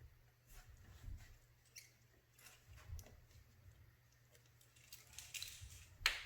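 Faint rustling, scratching and small clicks of hands working adhesive rim tape and its clear plastic protector film onto a motorcycle wheel rim, with a sharper crinkle near the end.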